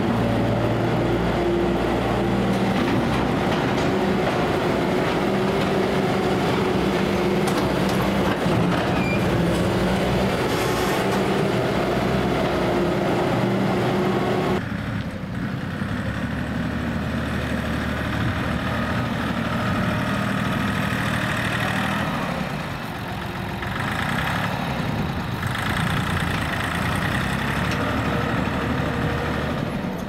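Diesel engine of a Bobcat S250 skid-steer loader and a small tractor's engine running steadily. About halfway through, the sound changes abruptly to a single tractor engine hauling a loaded trailer.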